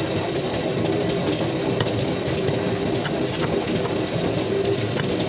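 Loud steady rumbling din with chickens clucking from their cages, and a few light knocks of a cleaver on a wooden chopping block.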